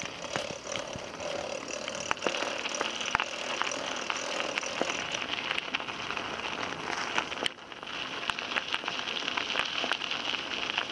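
Bicycle tyres rolling over a gravel path: a steady crunching and crackling with small stone clicks. It drops away briefly about seven and a half seconds in, then carries on.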